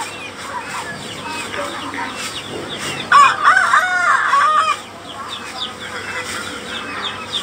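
Chickens squawking in distress while a dog attacks a rooster, with a loud burst of frantic squawks about three seconds in that lasts a second and a half.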